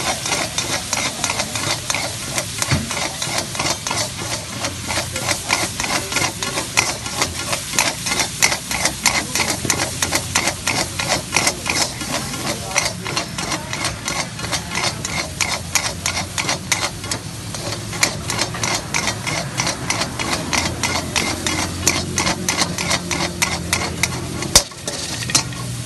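Metal spatula scraping and clanking in quick, steady strokes against a large iron wok as chicken jalfrezi is stir-fried, over a steady sizzle from the frying sauce. One louder clank near the end.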